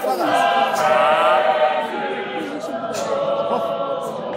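A congregation singing together unaccompanied, many voices in harmony; the singing thins out about halfway through.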